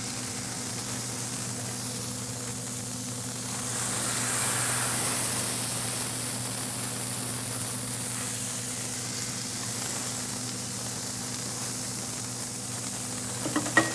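Freshly smashed ground-beef patties sizzling on a hot cast iron griddle: a steady hiss that swells a little about four seconds in, with a few small clicks near the end.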